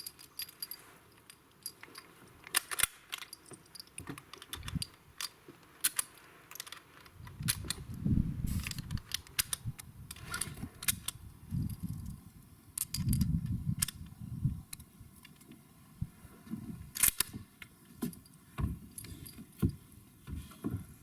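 Irregular sharp metallic clicks and clinks of a bolt-action rifle and its 8mm cartridges being handled, with a few stretches of low handling rumble.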